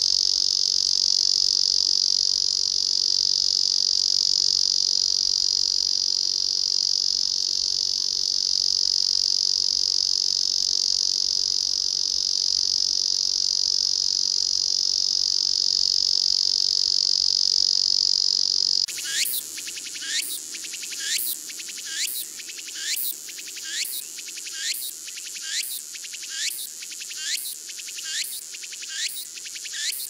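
Ezo cicada (Lyristes japonicus) singing a loud, steady, unbroken buzz. About two-thirds of the way through it cuts to another cicada species, whose call is a fast series of sharp high notes repeated about one and a half times a second.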